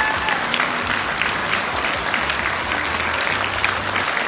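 Theatre audience applauding at a curtain call: many hands clapping densely and steadily, with a brief held high tone near the start.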